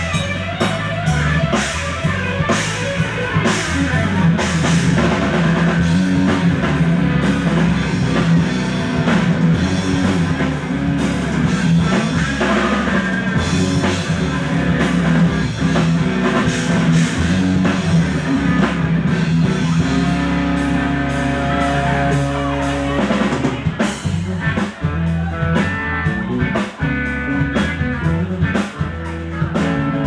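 Live rock band playing, an electric guitar over a full drum kit. In the last few seconds the playing turns choppy, with short gaps between hits.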